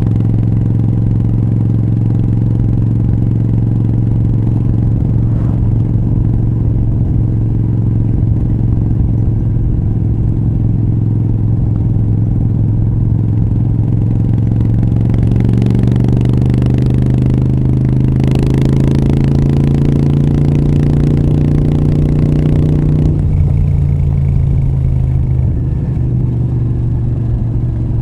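Moto Guzzi V7 III Rough's air-cooled transverse V-twin running through short Mistral exhaust pipes while riding. It holds steady at first, then climbs gradually in pitch under acceleration from about halfway in, and drops suddenly about five seconds before the end.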